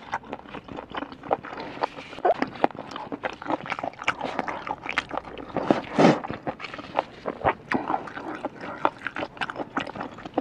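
Close-miked wet chewing of smoked freshwater snail meat: irregular small mouth clicks and squelches, with a short vocal hum of appreciation about six seconds in.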